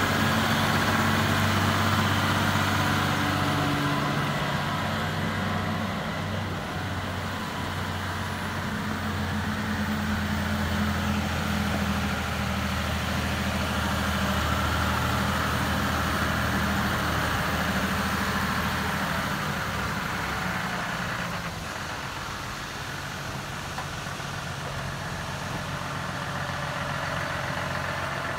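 John Deere 6150R tractor's six-cylinder diesel engine running at a steady speed as the tractor is driven. About two-thirds of the way through the engine note grows fainter, followed by a single short click.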